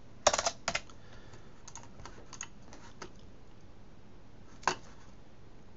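Typing on a computer keyboard: a quick run of loud keystrokes in the first second, lighter key taps over the next couple of seconds, then a single sharp click near the end.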